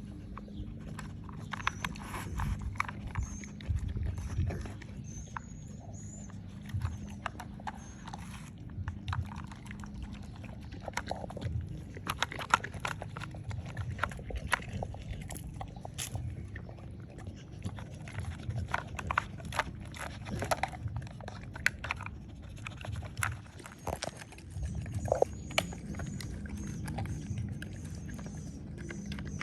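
Plastic pieces of a Nina Ottosson Dog Brick puzzle toy clacking and knocking irregularly as a dog works them open, the clatter thickest in the middle.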